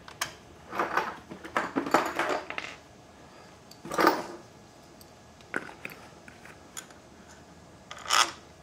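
Steel Allen bolts clinking as they are picked up and started by hand into a Harley Sportster engine's cam cover: a flurry of light metallic clicks at first, then a few separate clinks a couple of seconds apart.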